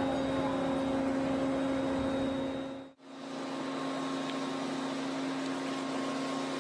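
Steady machine hum with a constant tone. It fades out and back in about three seconds in.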